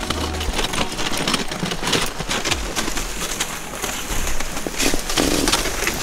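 Dog sled moving over crusty snow: the runners hiss and scrape steadily, with many small scratchy clicks.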